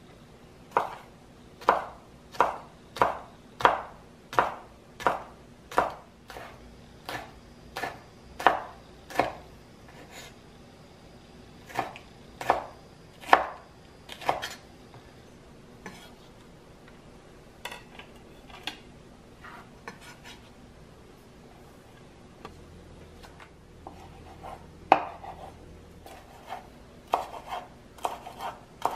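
Kitchen knife slicing fresh red and green chillies on a wooden cutting board, each cut a sharp knock of the blade on the board, steady at about one and a half a second, then thinning out. Near the end, quicker chopping of cilantro.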